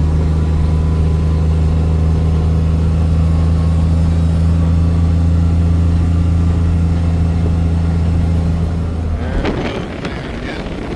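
Car engine running at a steady low drone, heard from inside the vehicle. About nine seconds in the drone stops and gives way to a rushing noise with scattered clicks.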